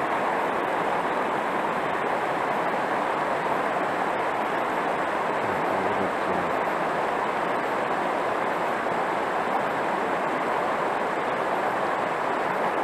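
Steady rush of river water pouring over shallow rapids.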